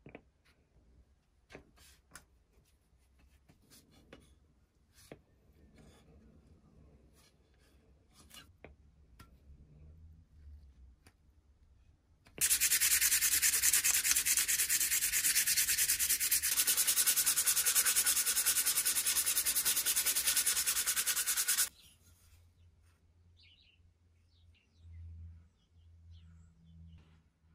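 Metal pulley side plate rubbed flat by hand against a granite surface plate: a steady, loud sanding hiss that starts about twelve seconds in, lasts about nine seconds and stops abruptly. Before it, faint clicks and taps of handling.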